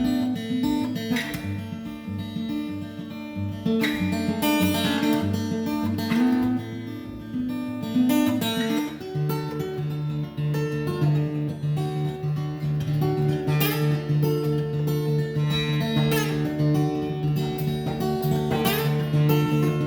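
Acoustic guitar being strummed: chords are struck every few seconds and left to ring.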